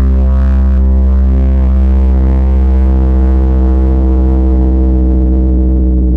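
A very deep, sustained bass drone sound effect: a loud low tone with a stack of overtones, the higher ones slowly fading while the deep base holds steady.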